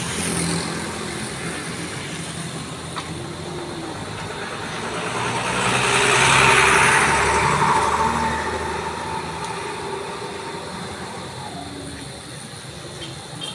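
Road traffic: engines running with a low hum, and a vehicle passing close by that swells up, is loudest about six to seven seconds in, then fades away.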